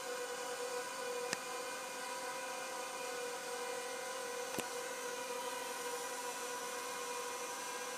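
A Zerotech Dobby pocket quadcopter's motors and propellers whirring steadily as it hovers, an even whine with a pitch that holds. There is a faint click just over a second in and another about halfway through.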